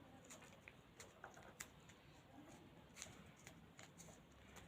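Near silence: room tone with a few faint, scattered clicks of small handling noises.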